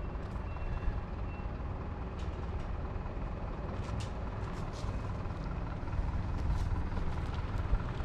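A truck's engine running steadily as it pulls in, a low rumble with a few light clicks and knocks over it.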